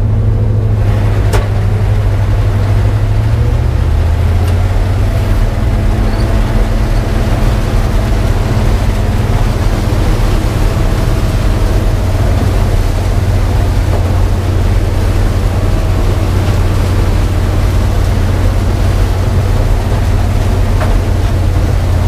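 New Holland TR70 combine's gasoline V8 engine running steadily under harvesting load, with the threshing machinery, heard from inside the cab while it combines corn. The engine note drops slightly about three to four seconds in.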